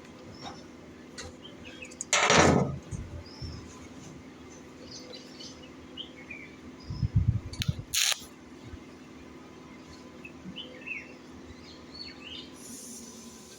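Birds chirping faintly, with a loud brief rush about two seconds in, a few low thuds around seven seconds and a sharp click just after.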